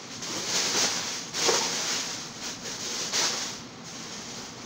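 Plastic packing wrap crinkling and a cardboard box rustling as hands dig through it, in irregular surges of noise.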